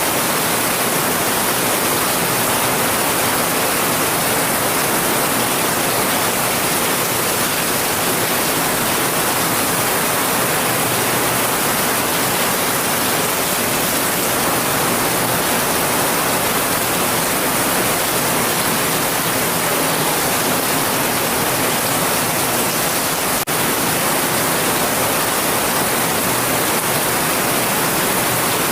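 Heavy rain falling as a steady, even hiss with no breaks in rhythm, strongest in the high end, with one momentary drop in level late on.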